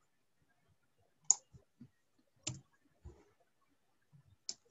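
Computer mouse clicks: three faint, sharp clicks spread over a few seconds, with a few softer, fainter knocks in between.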